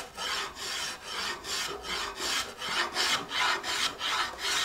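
Spokeshave shaving wood from a guitar neck by hand in quick short strokes, about three a second, each a brief dry hiss.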